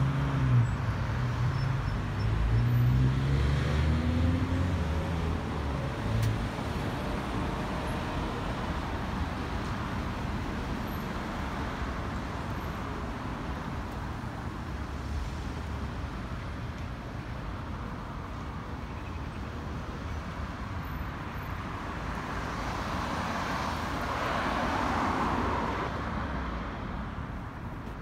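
Road traffic on a busy multi-lane city street: cars passing steadily. In the first few seconds a vehicle's engine rises in pitch as it accelerates away. Near the end a car passes close by with a swell of tyre and engine noise.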